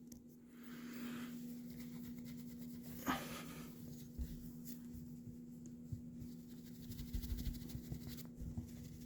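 Quiet rustling and scratching from a pet cat at play, with one sharp click about three seconds in and soft thumps later on, over a steady low hum.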